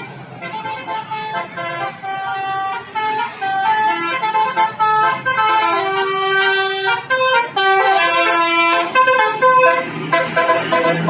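A bus's basuri telolet horn playing a loud melody of many notes, its pitch stepping from note to note every fraction of a second.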